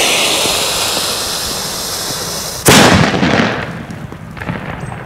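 Lit fuse of a Weco cube-shaped Kanonenschlag banger hissing and fading, then one sharp, loud bang about two and a half seconds in that echoes briefly.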